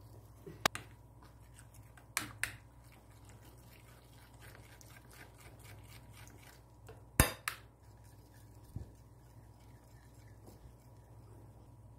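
Metal utensil whisking batter in a ceramic bowl: faint scraping and ticking against the bowl, with a few sharp clinks, the loudest about seven seconds in.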